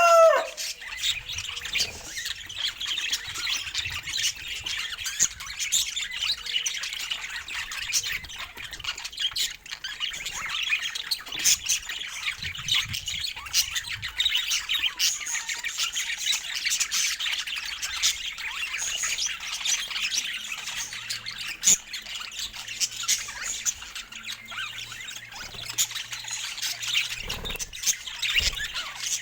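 Budgerigars chattering and warbling without pause, a dense stream of short chirps, squawks and clicks.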